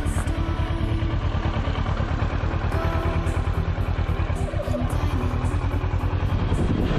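Kawasaki Versys motorcycle's parallel-twin engine running at low revs, an even pulsing beat heard from the rider's seat.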